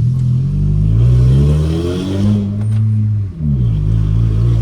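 Toyota Corolla 1.8 inline-four revving through the gears with its stainless-steel exhaust cutout open. The revs climb and hold high, drop sharply at a gear change a little over three seconds in, then climb again.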